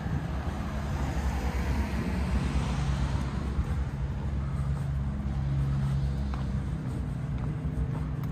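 Street traffic: a motor vehicle's engine running steadily close by, with the noise of a passing car swelling and fading about two to three seconds in.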